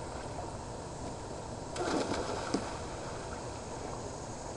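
A splash in the pool water about two seconds in, lasting under a second and ending in a sharp click, over a steady outdoor hiss.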